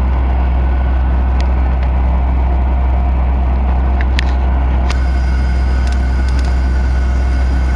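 Cabin noise inside a Fokker 100 airliner on the ground, its rear-mounted Rolls-Royce Tay turbofans running steadily at low power with a constant low hum and a steady higher whine. A few faint clicks sound over it.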